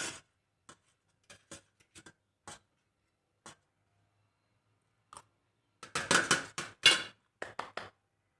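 Close-up eating of white noodles: scattered soft clicks and smacks, then a cluster of louder slurping and smacking about six seconds in.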